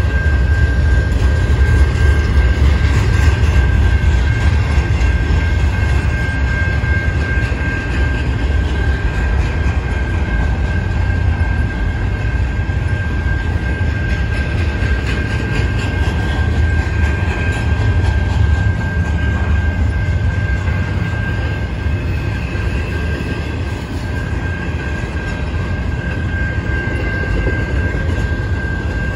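Double-stack container well cars of a CN freight train rolling past: a steady, loud low rumble of steel wheels on rail, with a steady high-pitched tone running over it.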